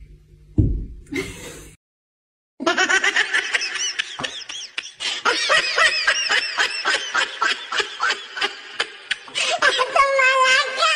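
Rapid high-pitched laughter: a quick run of short, wavering bursts, with a longer held note near the end.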